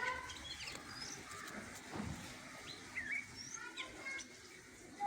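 Birds chirping and calling: many short, quick chirps and sweeping notes scattered throughout.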